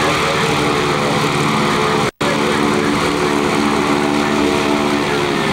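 Aerobatic plane's piston engine and propeller running steadily as it taxis close by. The sound cuts out completely for an instant about two seconds in.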